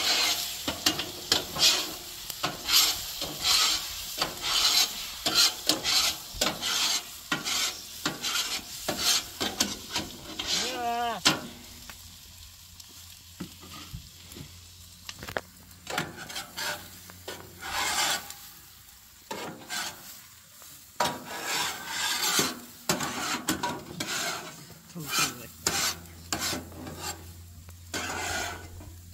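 A utensil scraping and stirring through a pan of sizzling chorizo, potatoes and eggs, in quick repeated strokes, with the stirring pausing now and then.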